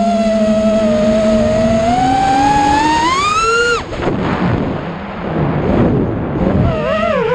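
FPV quadcopter's electric motors whining, their pitch climbing steadily with throttle, then cutting off suddenly a little past the middle. A rush of wind noise follows as the drone drops, and the motors come back near the end with a pitch that wavers up and down.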